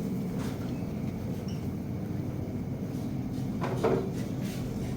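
Supermarket ambience: a steady hum from the store's cooling and air handling, with a faint click under a second in and a short knock or clatter, like a cabinet or cooler door, about four seconds in.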